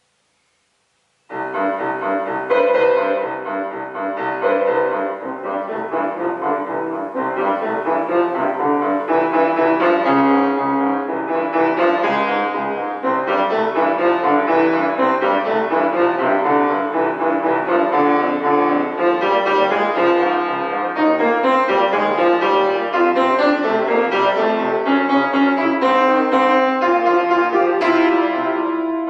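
Solo grand piano: after about a second of silence a piece begins, a melody over a steady repeated pattern in the bass.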